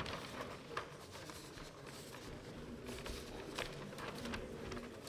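Quiet hall room tone from a seated audience, with faint rustling and a few scattered small knocks and clicks.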